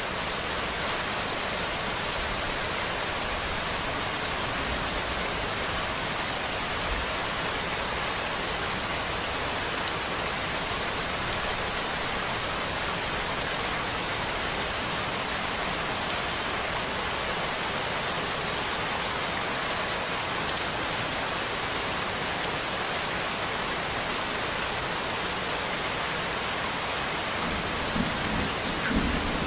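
Steady, even rainfall, a continuous hiss of drops on surfaces, with a couple of brief low thumps near the end.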